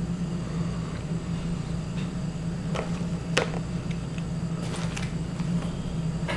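A steady low hum with a few light clicks and taps from fingers handling the laptop's display cable connector and its tape, two close together in the middle and two more near the end.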